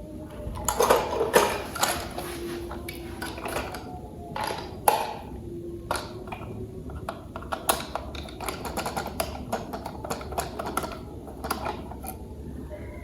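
Plastic toy parts being handled and fitted together: an irregular run of small clicks, taps and rustles, the loudest ones about a second in and near five seconds in.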